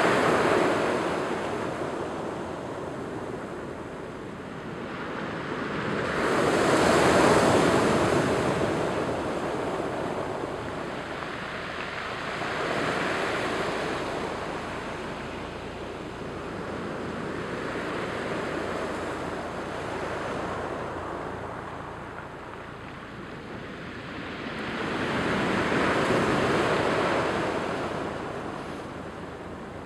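Surf from the Strait of Juan de Fuca breaking and washing over a pebble and cobble beach, swelling and fading in slow surges about six seconds apart, loudest about seven seconds in and again late on.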